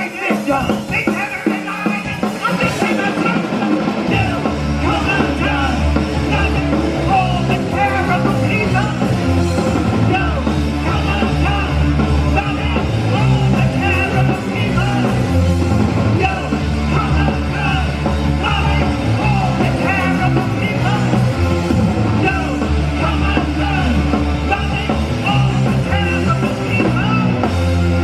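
Punk rock band playing live and amplified: electric guitars, bass and drums. The bass comes in fuller a few seconds in.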